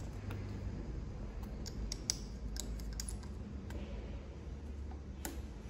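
Small, sharp clicks of a washer and propeller nut being handled and fitted onto a drone's motor shaft against the plastic propeller hub: a quick scatter of about a dozen clicks from about a second and a half to three seconds in, and one more near the end, over a steady low hum.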